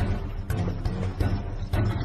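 Background music with a strong, steady beat of about two beats a second over a deep bass line.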